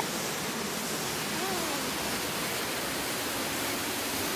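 Waterfall rushing: a steady, even wash of falling water.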